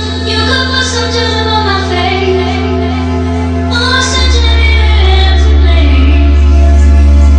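Music with a singing voice and heavy held bass notes played through a homemade PC speaker system built around a small CCE stereo; about four seconds in the bass moves to a lower, louder note.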